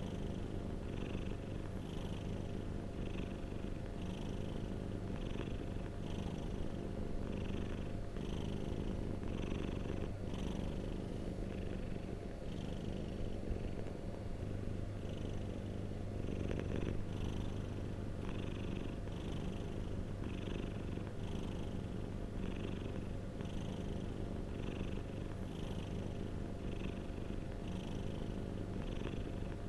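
Domestic cat purring steadily and continuously, pulsing about once a second with each breath in and out.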